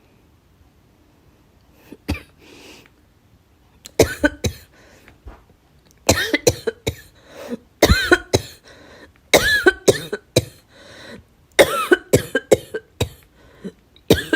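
A girl coughing in repeated fits, each of several quick coughs in a row. The coughing starts about four seconds in after a faint throat sound and keeps coming until the end.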